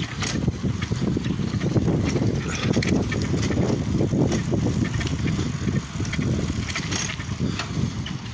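Wind buffeting the microphone of a camera carried on a moving bicycle: a loud, uneven low rumble, with scattered small clicks and rattles over it.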